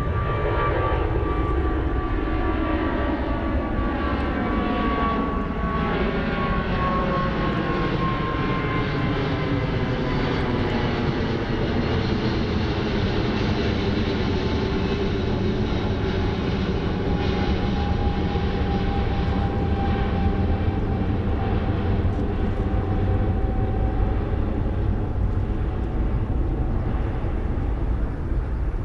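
Jet airliner engines at takeoff power as the plane climbs out: a loud, steady rumble with a thin high whine that slides slowly down in pitch as the aircraft passes.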